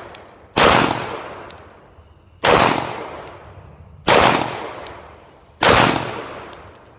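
Glock 17 9mm pistol fired four times at a slow, steady pace, each shot followed by a long fading echo, with short faint high pings between shots. The pistol has a Glock 19 extractor fitted, and the shots test whether that extractor is throwing spent brass back at the shooter's face.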